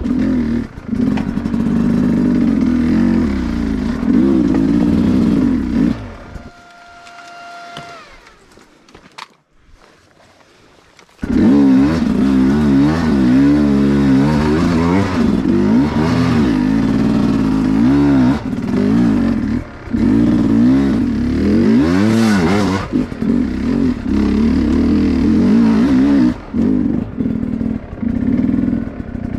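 Dirt bike engine revving up and down as it is ridden over rocky trail, with some clatter. It drops out for about five seconds around a quarter of the way in, then comes back suddenly and carries on revving.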